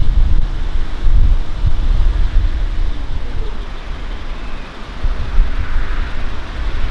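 Outdoor rumble of wind buffeting the microphone mixed with vehicle noise, uneven and gusty, with a faint passing engine tone about three seconds in.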